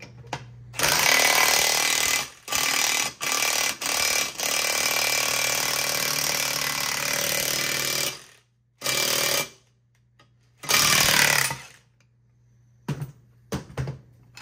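Impact wrench hammering on the forcing screw of a ball joint press in a run of bursts, the longest nearly four seconds, as the lower ball joint is pushed out of the steering knuckle. A few light metal clicks near the end as the tool is handled.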